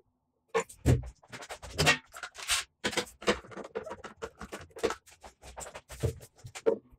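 One-handed quick-release bar clamps being set and squeezed tight around a wooden drawer box: a dense run of clicks, scrapes and knocks from the clamp triggers, bars and jaws, a few louder knocks about one and two seconds in.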